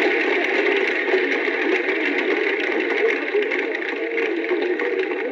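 A steady murmur of many indistinct voices talking at once, with no single words standing out.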